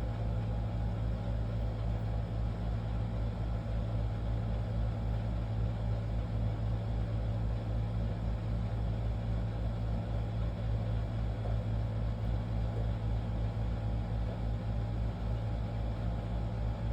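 Steady low mechanical hum of a running motor, with a fast, even throb underneath and no change in level.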